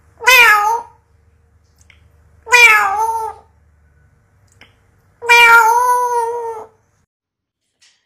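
African grey parrot imitating a cat's meow three times, each call sliding down in pitch and then holding, the third the longest.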